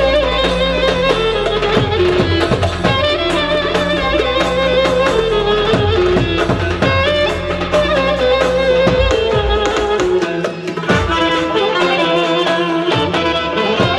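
Loud traditional Turkish dance music: an ornamented, wavering lead melody over bass and a steady beat. The deepest bass drops out about ten seconds in.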